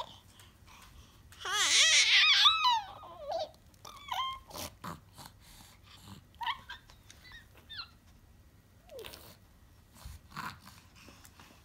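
Five-month-old baby squealing and babbling: a long, loud, high warbling squeal about two seconds in, then shorter high coos and squeaks later on.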